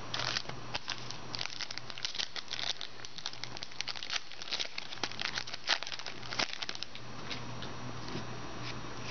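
Foil wrapper of a trading-card pack crinkling and tearing as it is opened by hand and the cards are pulled out: a run of quick crackles that thins out for the last couple of seconds.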